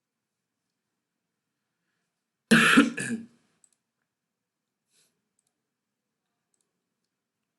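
A short, loud cough about two and a half seconds in, with the line otherwise silent.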